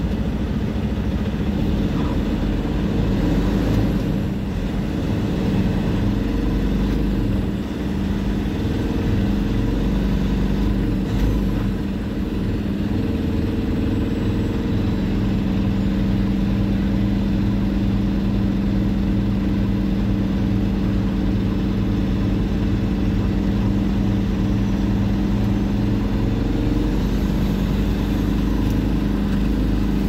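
Semi truck's diesel engine running at a steady speed while driving.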